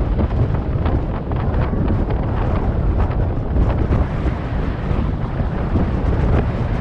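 Strong wind buffeting the microphone: a loud, continuous low rumble that gusts up and down.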